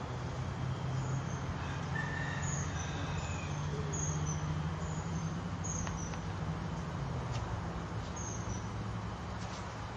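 Outdoor ambience by a fishing pond: a steady low mechanical drone that rises a little in pitch around the middle and settles again, with small birds chirping high over it and a few faint clicks in the second half.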